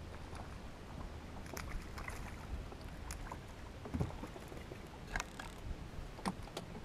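Small fishing boat at rest on the water: a steady low rumble with a few light clicks and knocks of gear in the boat, the loudest a dull knock about four seconds in.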